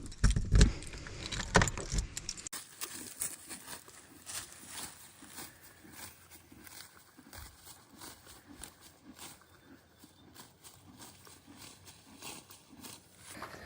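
Light metallic jingling and clicking of horse tack, with two heavier thuds in the first two seconds and the clicks growing sparser after that.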